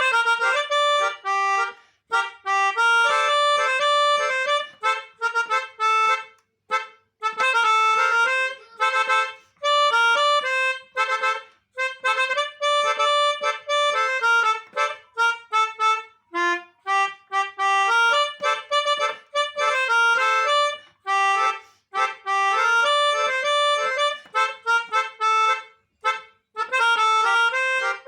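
A basuri telolet melody played on a pianika (melodica): a reedy keyboard wind tone in quick runs of notes, in short phrases with brief pauses between them.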